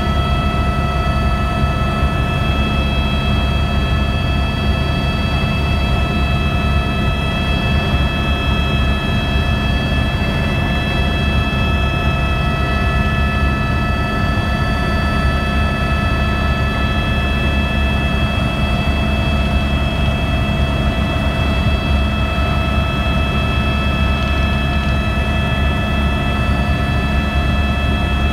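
Helicopter in flight, its rotor and turbine engine running steadily: a loud low drone with several constant high whining tones over it.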